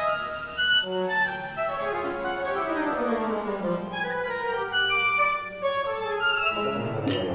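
Electric guitar driving virtual instruments with orchestral-sounding timbres, in a live electronic improvisation: a dense flurry of short pitched notes with a falling run in the middle. A brief sharp noise comes near the end.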